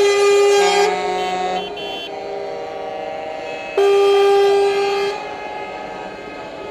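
Truck air horns sounding, several notes of different pitch at once. The loudest, steady horn note stops a little under a second in and sounds again for about a second and a half after the middle, while other horns keep sounding more quietly.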